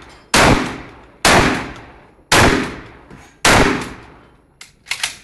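Shotgun fired four times in quick succession, about a second apart, each shot loud and sharp with a tail that dies away. A few small sharp clicks follow near the end.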